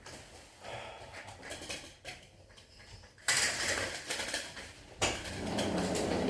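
Household clatter and rattling in a small room, like metal objects being handled: faint knocks at first, then a loud burst of clattering about three seconds in and another about two seconds later.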